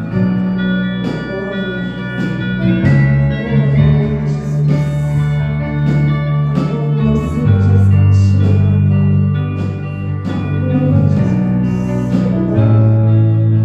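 Church worship band playing an instrumental passage: electric guitar, keyboard and bass guitar hold long chords over bass notes that change every second or two, with regular drum and cymbal hits.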